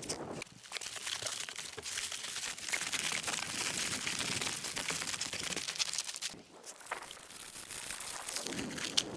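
Plastic wrap crinkling and rustling as it is handled and stretched, with a brief pause about two-thirds of the way through.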